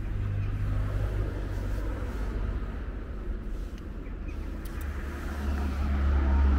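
A motor vehicle's engine running as a low, steady hum, which grows louder about five seconds in.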